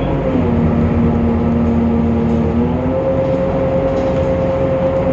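Temsa Avenue LF city bus running, its DAF PR 228 diesel and ZF Ecolife drivetrain giving a low rumble under a steady whine. The whine drops in pitch about a third of a second in and jumps back up just before three seconds: the bus's unusual sound.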